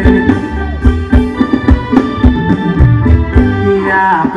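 Live Thai ramwong dance band playing an instrumental passage between sung verses: a regular drum beat under sustained melody instruments.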